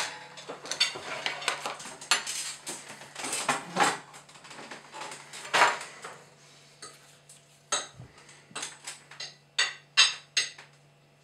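A metal spoon clinking and scraping against a ceramic soup bowl while someone eats soup. There is a run of irregular clatter first, then a series of sharp, separate clinks in the second half.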